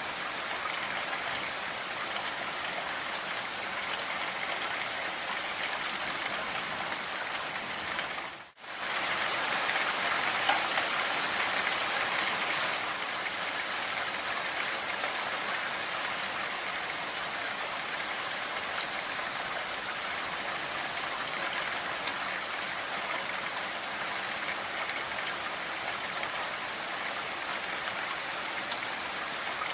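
Steady rain falling, an even dense patter. It cuts out briefly about eight seconds in, then comes back slightly louder for a few seconds.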